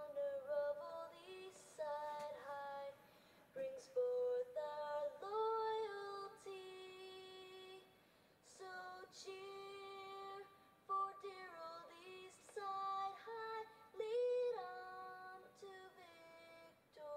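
Young voices singing a school alma mater in a slow melody of long held notes, heard through a television's speaker.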